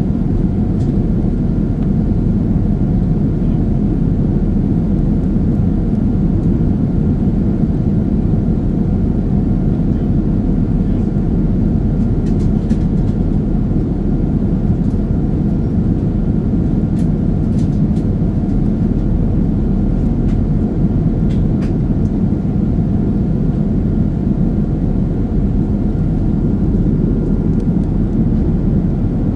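Steady cabin noise inside a Boeing 787 in flight: an even, low drone of the engines and the air rushing past the fuselage. A few faint clicks come and go in the middle.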